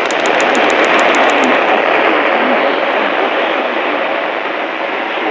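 Loud radio static: a weather radio receiver's steady hiss drowning out the broadcast voice, with a quick run of high ticks in the first second and a half. The owner blames the static on interference from a basement light that has been switched on.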